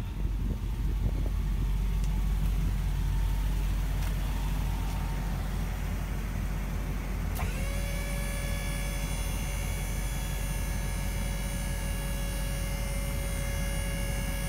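Steady low rumble of a truck engine idling; about halfway through, the electric hydraulic pump of a Power Hoist PH516 dump hoist kit switches on with a steady whine, raising the dump bed.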